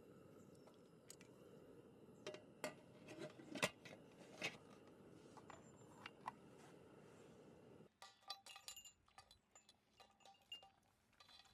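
Faint clinks and taps of dishes, glass and cookware, scattered irregularly, over a steady low rumble that cuts off about eight seconds in.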